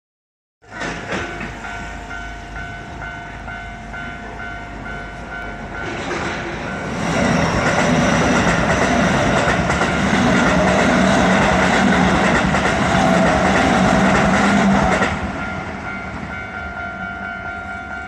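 Japanese railway level crossing's electronic warning bell ringing in a steady repeating pattern. A train runs past over the crossing for about eight seconds in the middle, louder than the bell.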